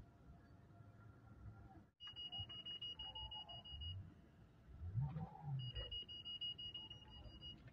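An electronic warning beep: a steady high tone sounds for about two seconds, stops, then sounds again for about two seconds near the end, over faint low rumble.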